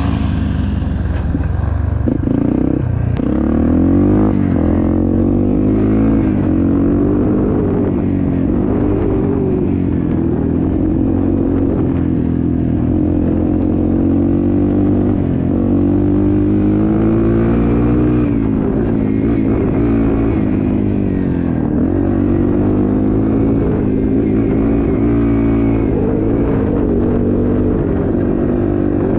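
Off-road vehicle engine running without a break, its pitch rising and falling again and again as the throttle is opened and eased off.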